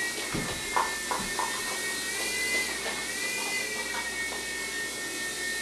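Mini electric hover UFO RC toy's motor and rotor whining steadily while it flies, the pitch rising and falling slightly with the throttle about two and a half seconds in. A few faint knocks in the first second and a half.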